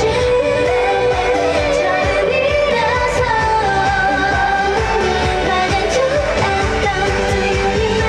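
K-pop girl group singing live into handheld microphones over a pop backing track played through the stage speakers.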